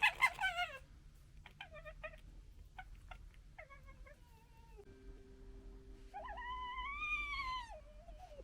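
Red foxes calling: a burst of rapid stuttering gekkering at the start, then short yelps and drawn-out whining calls that rise and fall in pitch, the longest near the end.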